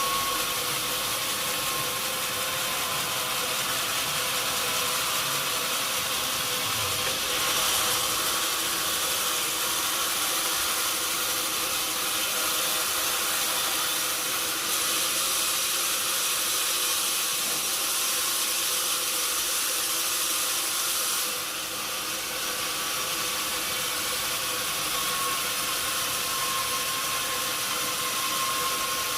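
Sawmill machinery running steadily, a hissing noise over a steady whine, likely a saw cutting through a log. The hiss shifts a few times and the sound dips briefly about twenty-one seconds in.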